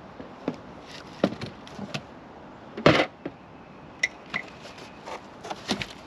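Cardboard box and its packing being handled while it is unpacked by hand: scattered short knocks, taps and rustles of cardboard and plastic wrap, with one louder, longer scrape or crumple about three seconds in.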